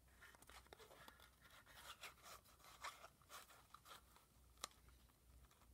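Faint crunching and rustling of paper and cardstock being worked with a craft circle punch, with one sharp click a little before the end.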